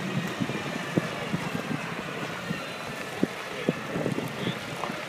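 Farm tractor's engine running steadily as it pulls up towing an open passenger trailer.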